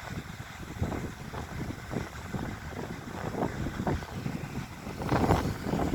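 Wind buffeting a phone's microphone, an uneven low rumble in gusts, with a stronger gust about five seconds in.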